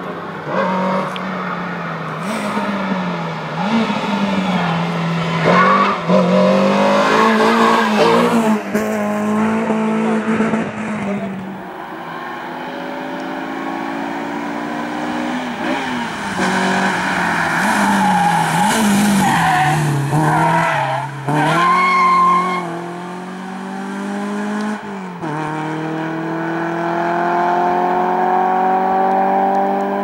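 Renault Clio rally car's engine revving hard through a cone slalom, its pitch climbing and dropping again and again as the driver accelerates, lifts and shifts gear. Near the end the pitch climbs steadily in one long pull as the car accelerates away.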